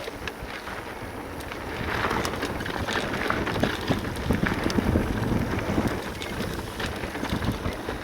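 Full-suspension e-mountain bike descending a gravel-and-dirt trail at speed: tyres rushing over the surface, many sharp clicks and rattles from stones and the bike, and wind buffeting the microphone. It gets louder about two seconds in.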